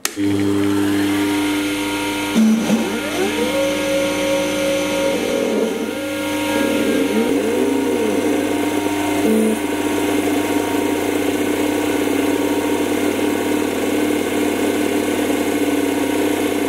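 Sherline 4410 CNC lathe switched on: the spindle motor starts at once and runs with a steady hum. In the first half, the CNC stepper motors add several whines whose pitch rises and falls as the axes move.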